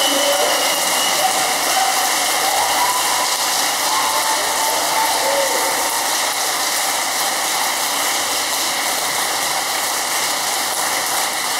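Audience applauding steadily, with a few voices calling out in the first seconds.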